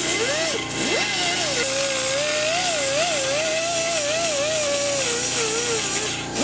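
Die grinder with a burr cutting into cast iron, its high whine wavering up and down as the burr bites and eases off, over a steady hiss. The speed drops and picks up again about a second in and once more near the end as the throttle is eased and reapplied.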